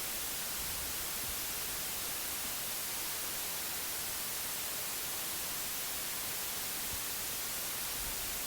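Steady white noise: an even, unchanging hiss, strongest in the high register, played as a sleep-relaxation background.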